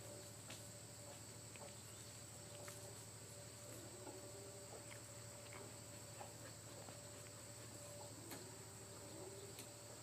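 Faint outdoor ambience: a steady, high-pitched insect chirring, likely crickets, with a faint steady hum and scattered soft clicks at irregular times.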